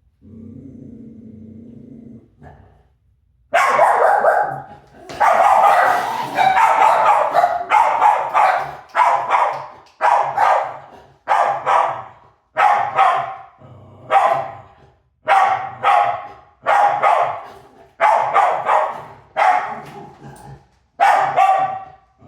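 Dog growling low for about two seconds, then barking hard in repeated rapid volleys, one about every second and a half.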